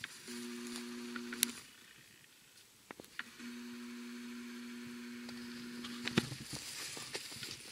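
Camcorder zoom motor whining in two steady stretches, a short one and then a longer one about three seconds in, as the lens zooms in, with a few light handling clicks.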